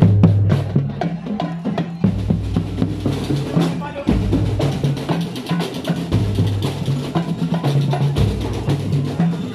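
Drum and lyre corps playing while marching: drums beating a steady marching rhythm under the band's music.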